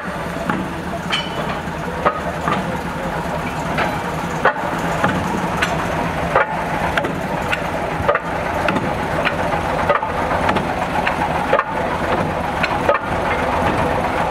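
Two small diesel shunting locomotives, one of them a Planet diesel, running coupled together at low speed with a steady engine chug and sharp metallic clanks about once a second, growing louder as they draw close.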